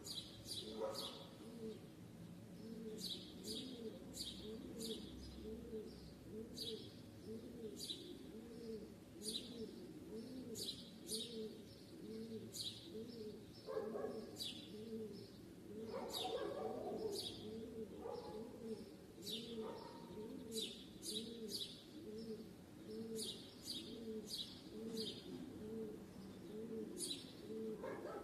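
Small birds chirping in short, quick calls over a dove or pigeon cooing steadily and low, over and over in an even rhythm.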